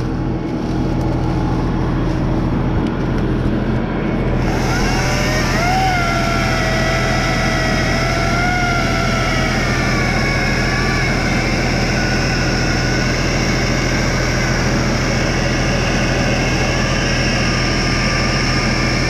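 Battery-powered electric chainsaw spinning up about four seconds in, then whining as it cuts through a log, its pitch wavering and sagging under load. Under it a diesel tractor engine idles steadily.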